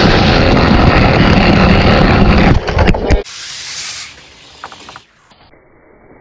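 Die-cast toy car wheels rolling fast along orange plastic track, picked up loud by a GoPro riding on the car. The rolling noise cuts off suddenly about three seconds in, leaving a quiet hiss and a few light clicks.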